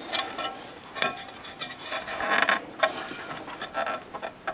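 The metal platter of a Technics SL-5 turntable is being pulled and worked by hand against its tapered press-fit spindle, where it is still stuck. It gives an irregular run of metallic scrapes, rubs and clicks.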